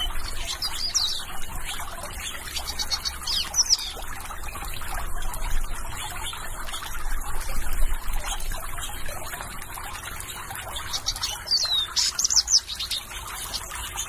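Steady trickling and splashing of water from a garden birdbath fountain, with short high bird chirps over it: a few about a second in, another near four seconds, and a quick run of chirps near the end.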